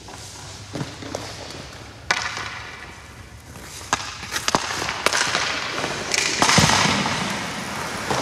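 Hockey skates scraping and carving on rink ice, with a longer scrape about six and a half seconds in. Sharp knocks of hockey sticks and pucks ring out every second or so and echo around the arena.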